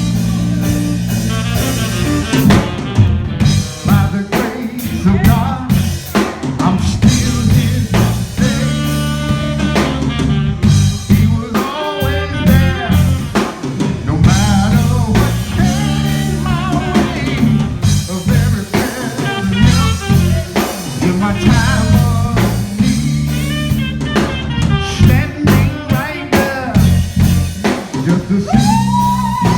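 A band playing a blues-flavoured instrumental passage: a drum kit with snare rimshots and bass drum over a stepping bass line, with a melodic lead line above. A long held note comes in near the end.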